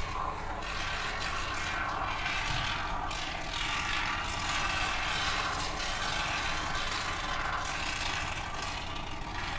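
Aerosol can of expanding spray foam hissing and sputtering steadily as foam is dispensed, the hiss swelling and easing.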